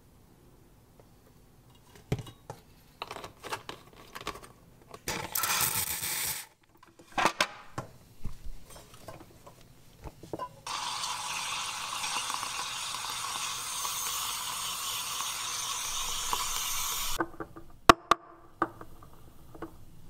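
Espresso machine steam wand hissing steadily for about six seconds, with a shorter burst of hiss about five seconds in. Clinks and knocks of a stainless steel milk pitcher being handled come before and after, with a sharp click near the end.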